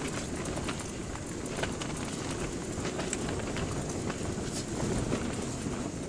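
Strong wind buffeting the fabric of an ice-fishing tent: a steady rush with scattered light crackles and taps.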